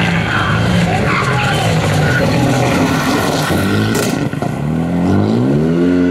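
Renault Mégane RS rally cars' turbocharged four-cylinder engines at full throttle, with tyre and gravel scrabble. About four seconds in the note breaks off briefly, then climbs steadily as the car accelerates out of a slide.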